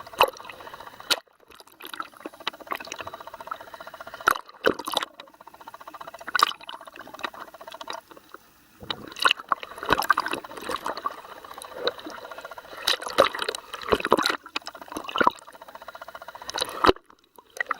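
Water sounds on a dive: sloshing and bubbling in irregular bursts, with sharp clicks and knocks between them.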